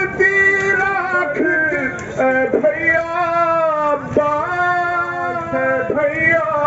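A man singing a noha, a Shia mourning lament, into a handheld microphone. He sings in long held notes that slide from one pitch to the next.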